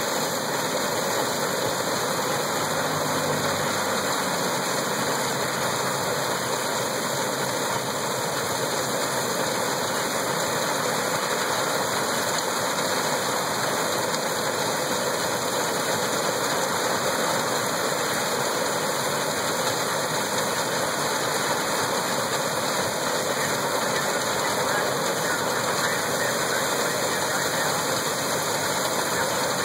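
Threshing machine running under load, belt-driven by a steam engine, as bundles are fed in and straw is blown out through the stacker pipe: a steady, even rushing noise with no breaks.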